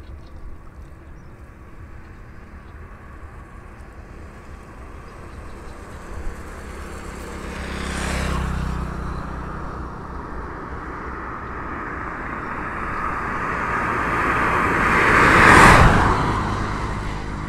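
Two motor vehicles passing by: one swells and fades about eight seconds in, and a louder one rises to a peak near the end and then fades.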